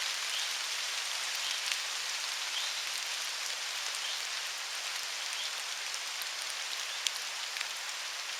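Steady rain falling, with scattered single drops ticking close by and one sharper tick about seven seconds in.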